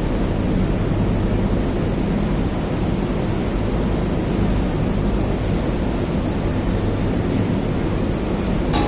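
Steady, loud rushing noise with a low hum underneath and a constant high hiss, unchanging throughout, with one sharp click near the end.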